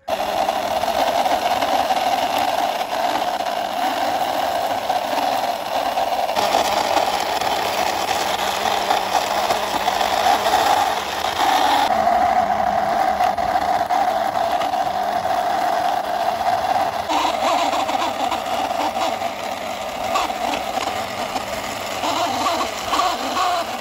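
A motor vehicle's engine running steadily, with a strong mid-pitched drone, its sound shifting abruptly about six, twelve and seventeen seconds in.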